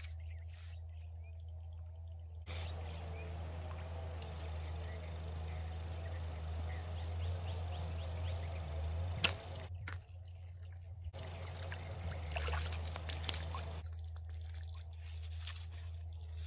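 Outdoor ambience over a steady low hum. A louder, even hiss comes in about two and a half seconds in, breaks off briefly around ten seconds, and stops about fourteen seconds in, with a single sharp click just after nine seconds.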